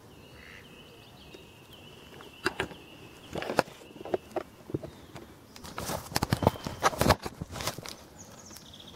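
Splashes and knocks from a hooked common carp being brought in at the lake's edge, scattered at first and coming thick and fast from about six seconds in. A thin, steady high whistle sounds through the first three seconds.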